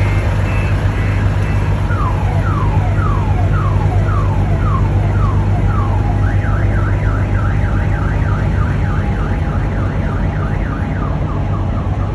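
Custom siren-style backup alarm on a reversing semi truck, sounding over a steady low hum. It repeats a falling sweep about twice a second, then switches about six seconds in to a fast up-and-down warble.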